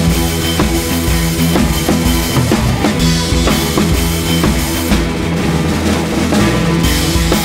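Background music with a steady drum-kit beat and held bass notes.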